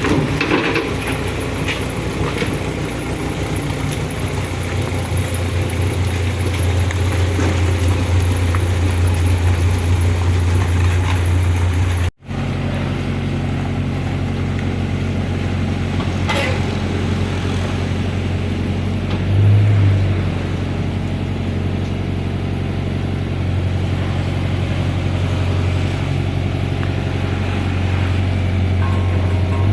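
Excavator's diesel engine running steadily with a low hum. The sound drops out suddenly for a moment about twelve seconds in, then carries on, and briefly swells a few seconds later.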